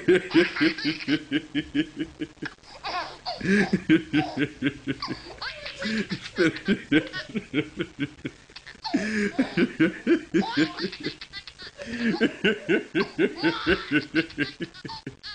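A man laughing hard in about five bouts of rapid, evenly spaced ha-ha pulses, each bout a couple of seconds long, with short breaks for breath between them.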